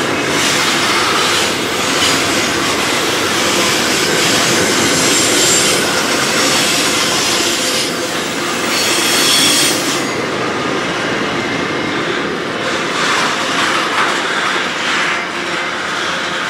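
Freight train wagons rolling past at trackside, a steady rush of wheel and rail noise with thin high wheel squeals on the rails. The high squealing stops about ten seconds in, leaving a lower rolling rumble as container wagons follow the louvre vans.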